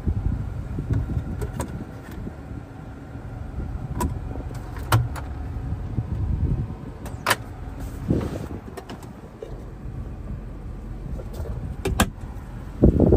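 A 2002 Chevrolet Impala's 3.8-litre 3800 V6 idles steadily as a low rumble heard inside the cabin. Over it come several sharp clicks and clunks of the interior being handled, including the glovebox lid being opened, and a louder thump near the end.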